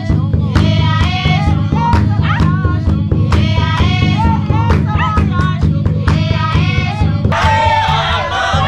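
Traditional song: voices singing a melody over a steady drum beat, the sound changing a little before the end.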